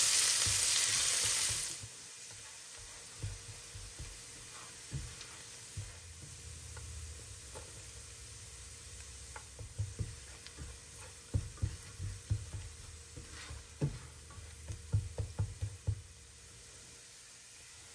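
Food sizzling in a hot frying pan, loud for the first two seconds and then much quieter. A cooking utensil stirs and knocks against the pan in many short clacks, most of them in a busy run near the end.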